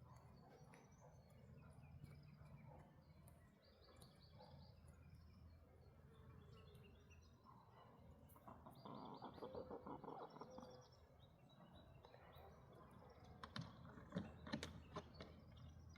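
Faint bird calls: short series of high chirps, joined about halfway through by a lower, rapidly pulsing call lasting about two seconds. A few sharp clicks or taps come near the end.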